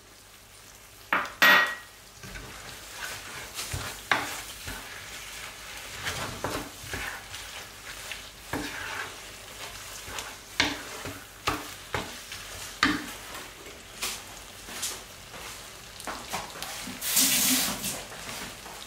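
A wooden spatula stirring and tossing spaghetti carbonara in a hot non-stick frying pan: irregular scrapes and taps against the pan over a light sizzle. There is a sharp click about a second and a half in, and a louder scraping rush near the end.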